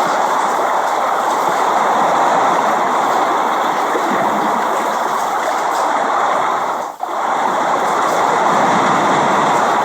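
Steady, dense rainfall noise with a brief dip in loudness about seven seconds in.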